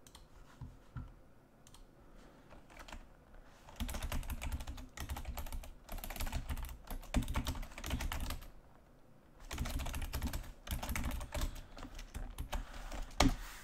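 Typing on a computer keyboard: two long runs of rapid key clicks, the first starting about four seconds in, then a pause of about a second before the second run.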